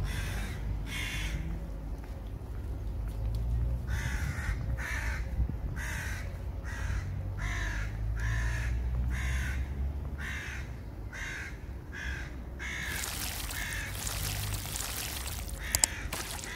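A bird calling, two calls and then a long run at about two calls a second, over a steady low rumble. A brief rush of hiss comes about thirteen seconds in.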